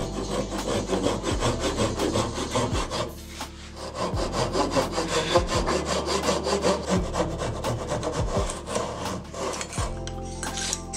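Fine-toothed Japanese pull saw cutting a miter in hard maple by hand, in quick, even strokes with a short pause about three seconds in.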